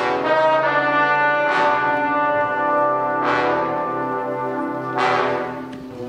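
Marching band brass, including sousaphones and mellophones, playing full sustained chords, with a strong accented hit about every two seconds.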